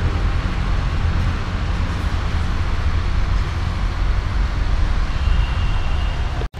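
Steady road-vehicle noise with a heavy low rumble and a hiss, cutting off abruptly near the end.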